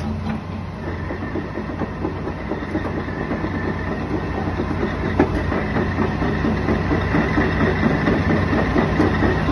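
Hitachi Zaxis ZX200 excavator's diesel engine running: a steady low hum under a dense rattling clatter, with a high whine coming in about a second in.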